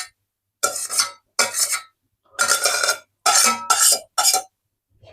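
A utensil scraping and knocking against a cooking pan, about six short scrapes with pauses between, as food is scooped out and tipped into one pan. The scraping is loud enough that the cook then changes to a soft spatula to make it less noisy.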